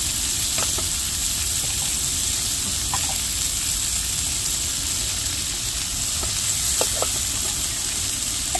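Pork back ribs and pork belly sizzling steadily on a ridged griddle pan while teriyaki sauce is brushed onto the ribs. A few faint clicks sound now and then.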